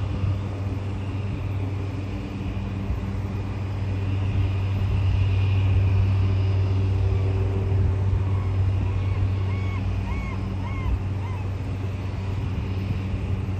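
Floatplane's propeller engine running with a steady low hum, growing louder for a few seconds in the middle and then easing off as the plane runs across the water.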